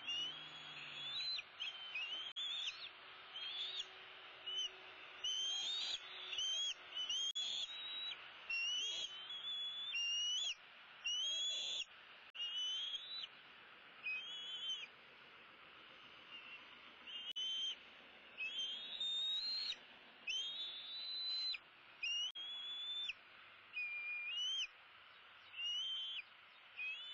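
Young bald eagle giving high, thin whistled calls, repeated about once a second, each rising then holding or slurring down, with a pause of a couple of seconds partway through.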